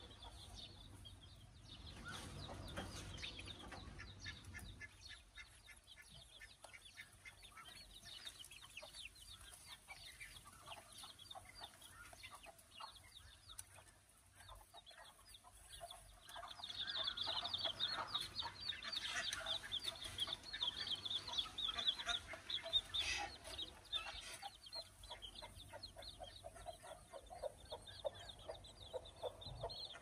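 Chickens clucking, faint at first and busier and louder from about halfway through.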